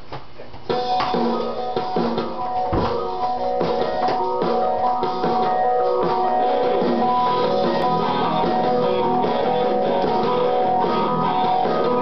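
A small band starts playing about a second in: guitars strummed with drums, a live amateur rock performance.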